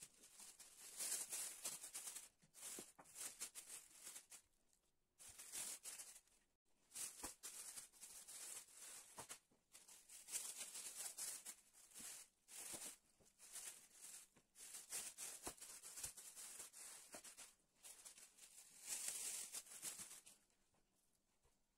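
Thin plastic bags being handled, crinkling and rustling crisply in repeated irregular bursts with short pauses between them.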